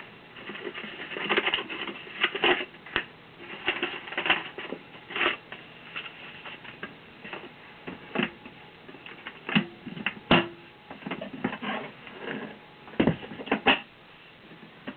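Handling noise: irregular clicks, taps and rustling as hands move the parts and papers of a vintage portable tube radio, with a few sharper knocks about ten and thirteen seconds in.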